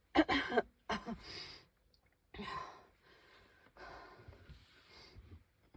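A person labouring to breathe, wheezing: a short loud burst of voice just after the start, then a string of noisy breaths in and out, the last one drawn out for over a second.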